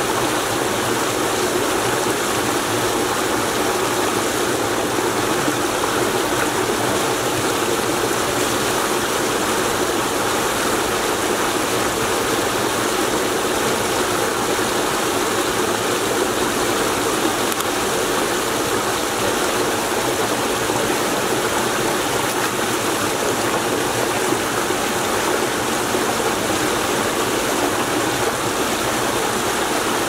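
Heavy flow of water rushing steadily through a field drainage ditch and culvert opened up by beaver-dam removal.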